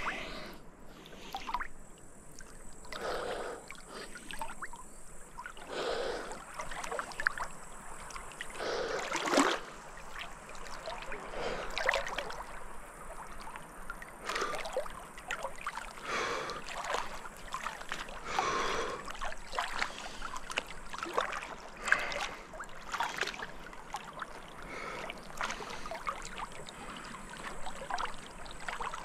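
River water splashing in a repeated rhythm, one swash every two to three seconds, over a faint steady hiss of flowing water.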